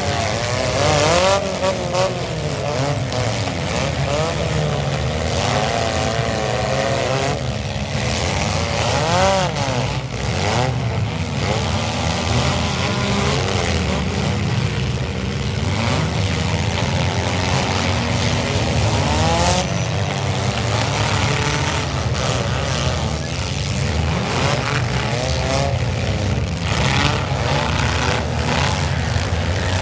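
Several compact demolition derby cars' engines revving hard and constantly, pitch rising and falling as they accelerate and push. Occasional sharp bangs of metal impacts come through.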